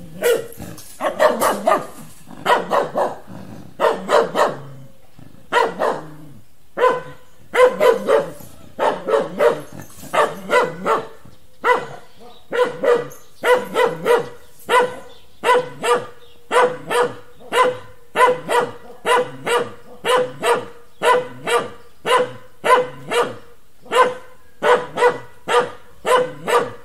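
Dog barking over and over: at first in short groups of two or three barks with gaps between, then in a steady run of about two barks a second.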